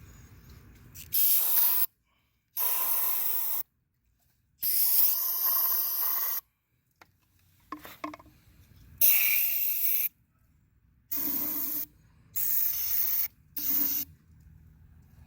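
Aerosol carburetor cleaner sprayed in about seven short hissing bursts, each starting and stopping sharply, used to flush water out of a wet string trimmer engine.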